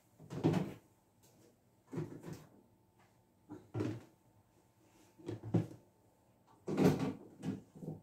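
Plastic food storage containers knocking and clattering against each other and the cupboard shelf as they are taken down and stacked, in a series of short separate knocks about a second apart.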